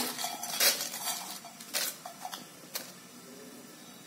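Crisp-roasted dried Byadgi red chillies dropping into a stainless-steel mixer-grinder jar: a few light clicks and dry rustles over the first three seconds, then stillness.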